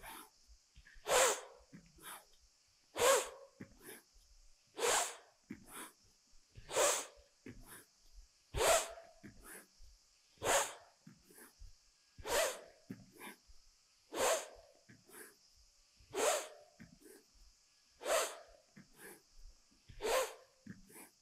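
A person breathing hard in time with a repeated yoga movement: a sharp, forceful exhale about every two seconds, with quieter inhales between.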